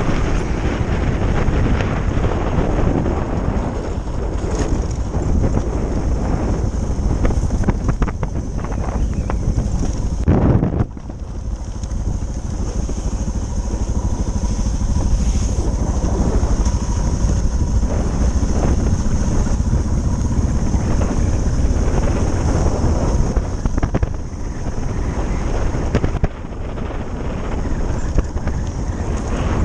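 Suzuki DR650's single-cylinder engine running under way, mixed with wind buffeting the helmet-mounted microphone. The level drops suddenly about eleven seconds in, and briefly again near the end.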